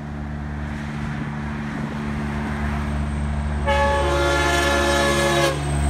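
A Kenworth semi truck's diesel engine drones, growing louder as it comes in. About two-thirds of the way in, its air horns blow a chord of several notes at once, like a train horn, held steady for nearly two seconds and then cut off.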